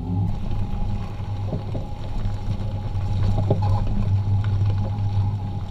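A Jeep driving slowly over a gravel track: a steady low rumble with scattered clicks and crunches of stones.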